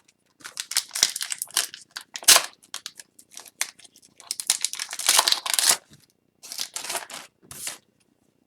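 A trading-card pack wrapper being torn open and crinkled by hand, in a run of short rustling bursts with brief gaps.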